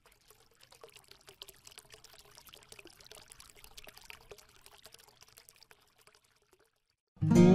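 Faint, irregular crackling sound effect made of many small ticks. About a second before the end, loud strummed acoustic guitar music starts abruptly.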